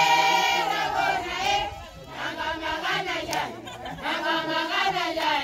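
A crowd of women and children singing together in unison, in three phrases of about one to two seconds each with short breaks between them.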